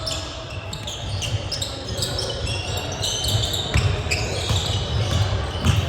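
Basketball bouncing on a gym's hardwood floor during play, with the low thuds of dribbles and many short, high sneaker squeaks. Two thuds stand out, about four seconds in and near the end.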